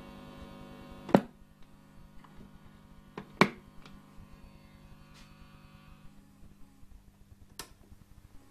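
Antique radio-gramophone humming steadily through its speaker once the record stops playing, with sharp clicks as the tonearm is lifted and set on its rest, the loudest about three and a half seconds in. Another click comes near the end.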